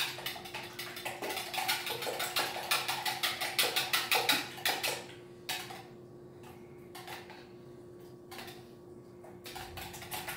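Wire whisk beating eggs in a bowl: fast, rattling clicks of the wires against the bowl. The whisking breaks off about halfway through, leaving only a few short bursts, then picks up again near the end.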